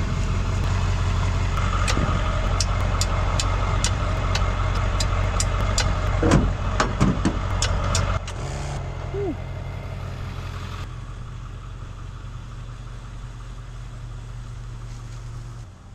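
An engine running steadily, with a run of sharp clicks, about two or three a second, and a louder clatter around six to seven seconds in. After about eight seconds the sound cuts to a quieter, lower steady hum.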